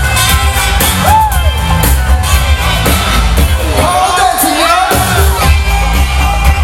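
Loud live jam-band music from a festival sound system, with a heavy bass line and a steady beat. Crowd members whoop and yell over it, once about a second in and again more strongly around four to five seconds in.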